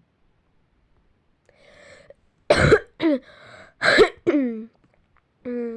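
A person who is ill with a cough, coughing: a faint breath in, then three harsh coughs in quick succession, the last trailing into a short voiced sound.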